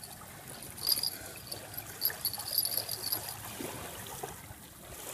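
Small metal fishing rod bells jingling lightly in short runs, about a second in and again from two to three seconds in. Under them a stick scrapes and knocks in gravelly dirt, with a faint trickle of water behind.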